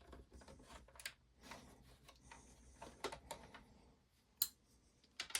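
Faint scattered clicks and light taps of a hand screwdriver working T8 Torx security screws out of a PlayStation's plastic case, with one sharper click near the end.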